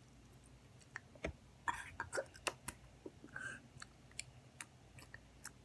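Chewing crunchy Cheetos close to the microphone: a run of crunches and sharp clicks, busiest about two seconds in, then sparser.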